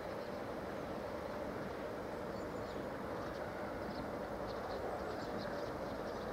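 Electric locomotive's steady running hum. Faint short high chirps come in now and then from a couple of seconds in.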